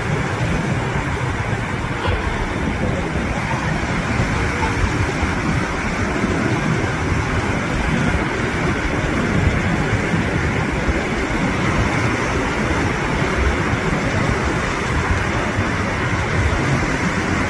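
Big Atlantic waves breaking on a sandy beach: continuous, loud surf noise with no breaks, heaviest in the low end.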